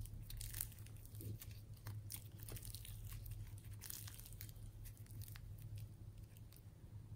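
Slime being squeezed and kneaded by hand, giving many small irregular clicks and crackles from popping air pockets, over a steady low hum.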